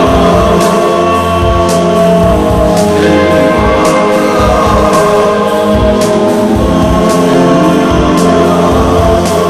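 Music: sustained choir-like voices over a steady beat with low pulses.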